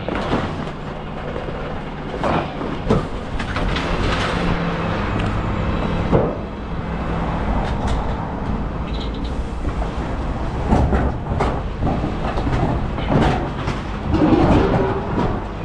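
Refuse collection truck running, with a steady low engine drone under frequent clanks and rattles, about one every second or two.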